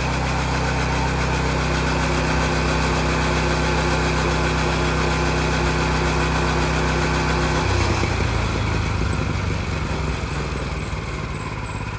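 Small petrol engine of a rail grinder running steadily. About eight seconds in, its steady note breaks up into a rougher, lower one and it gets a little quieter.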